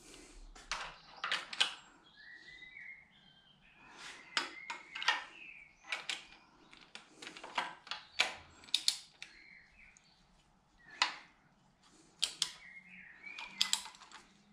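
Hand ratchet clicking in short, irregular runs as bolts at the camshaft sprockets of a BMW N52 engine are run down before torquing. Birds chirp faintly in the background.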